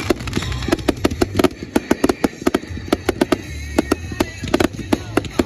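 Firecrackers going off in quick, irregular succession, several sharp bangs a second.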